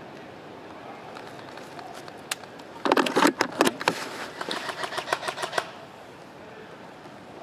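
A flurry of sharp clicks and knocks starting about three seconds in and lasting nearly three seconds, densest at first and then spacing out, over a steady outdoor hiss.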